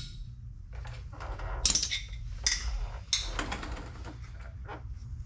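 Steel hand tools clinking, scraping and knocking against the truck's driveline bolts, in irregular clicks and short rattles over a steady low hum.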